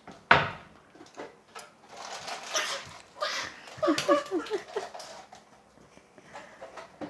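Kitchen handling noises: a sharp knock a moment in, the loudest sound, then rustling and small clicks, and a small child's short vocal squeals about four seconds in.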